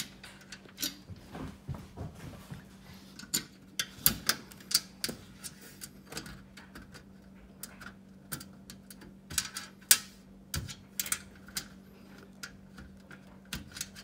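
Irregular small metallic clicks and taps of screws and nuts being fitted and turned by hand at a steel corner joint of a typewriter table, with a few louder knocks in among them.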